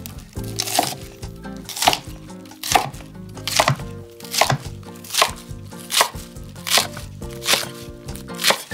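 Kitchen knife chopping napa cabbage on a cutting board: about ten even strokes, a little more than one a second.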